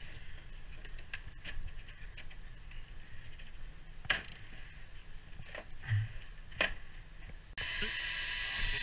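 Small cordless drill starting suddenly near the end and running steadily for about two seconds, pressed against sheet-metal roof flashing. Before it come a few light clicks and taps from the flashing being handled.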